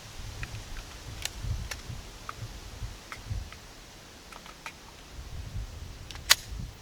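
Scattered small clicks and dull low thumps of handling and movement close to the microphone, with one much sharper, louder click near the end; no shots are fired.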